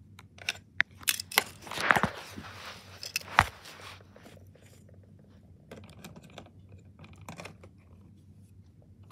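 Plastic Duplo pieces clicking and knocking as they are handled: a run of sharp clicks in the first few seconds, then only a few faint ones.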